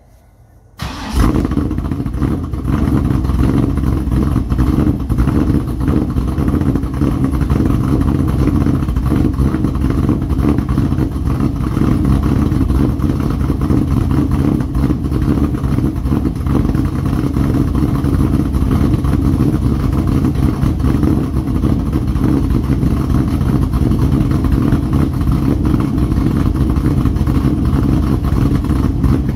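2001 Pontiac Trans Am WS6's V8 starting from cold about a second in, briefly louder at first, then settling into a steady, loud idle through aftermarket headers and a catback exhaust.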